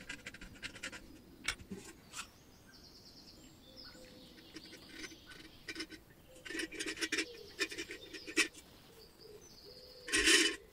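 Old metal filler cap on a vintage camping stove unscrewed with short squeaks and scraping clicks. Then liquid from the stove's tank dribbles and splashes into a plastic tub in irregular drips, with a louder clatter near the end.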